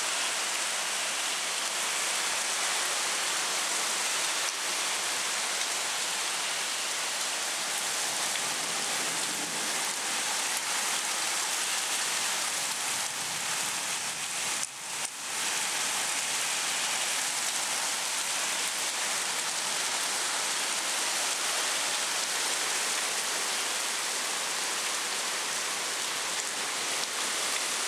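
Heavy rain from a summer storm pouring down in a steady, dense hiss, which dips briefly about halfway.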